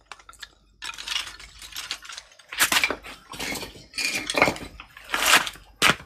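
A metal basin and a brass fitting being handled, clinking and scraping. It comes as a run of short, irregular clatters starting about a second in.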